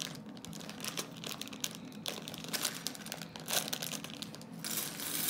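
Clear plastic LEGO parts bag crinkling as small bricks are worked out of it by hand, with a louder stretch of crinkling near the end.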